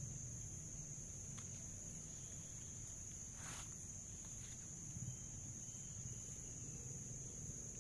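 Steady high-pitched chirring of insects, a continuous drone over a low rumble, with a brief swish about three and a half seconds in.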